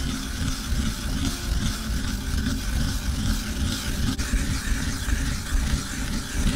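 Apple being grated by hand on a grater in a ceramic bowl: a continuous rough scraping that rises and falls with each stroke.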